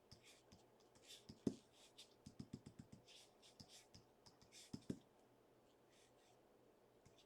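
Near silence with faint scattered clicks and taps: a single click about a second and a half in, a quick run of about six a second later, and a close pair near the middle.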